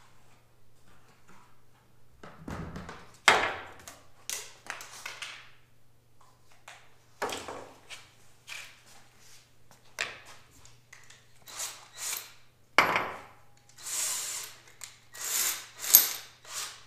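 Workshop handling noise: a plastic bucket and hand tools being set down and picked up on a wooden workbench, a string of separate knocks and clatters with a few short scrapes, over a faint steady electrical hum.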